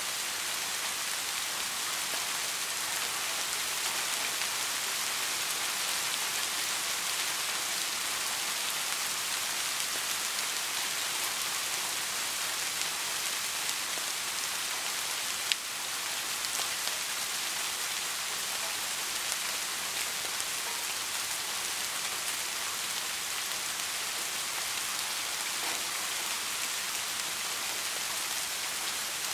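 Steady, even rain falling, a dense continuous patter of drops. A single sharp click stands out about halfway through.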